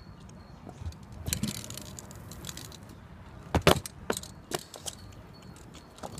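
Stunt scooter rolling on the concrete, then a loud clattering impact of the scooter's metal deck and wheels on the quarter pipe about three and a half seconds in, followed by a few lighter knocks and rattles as it rolls away.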